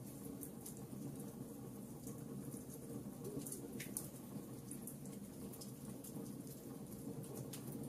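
Wood fire burning in a fireplace: logs crackling with irregular sharp pops over a steady low rumble of the flames.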